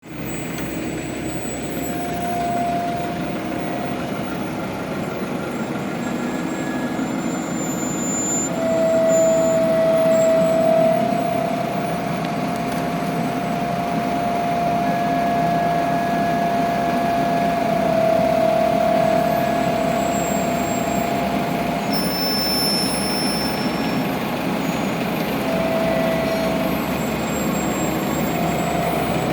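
Heavy diesel road-paving machinery running steadily during asphalt laying, with a high whine that comes and goes, strongest from about 9 to 20 seconds in.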